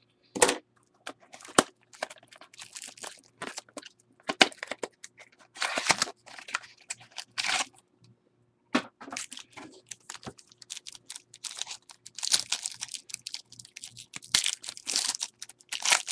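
Foil trading-card pack wrapper crinkling and tearing open, along with the handling of the small cardboard pack box: a run of irregular crackles and rustles that grows busier near the end.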